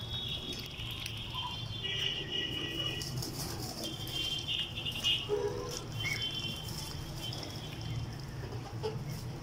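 A pen of young ducks and hens: high-pitched peeping calls in runs of about a second, repeated several times, over light pecking and pattering clicks and a low steady hum.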